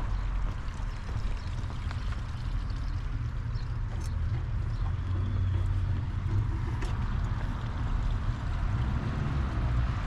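Low, fluctuating rumble of wind buffeting an action camera's microphone, with a couple of sharp clicks, one about four seconds in and another near seven seconds.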